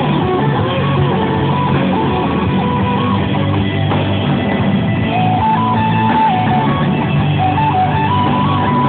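A live rock band playing an instrumental passage: electric guitars strumming over drums, with a held, stepping lead melody line. The sound is dull, with no high end.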